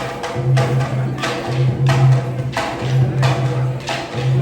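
Rhythmic percussion music: a low drum beat with sharp wooden clacks falling about every two-thirds of a second.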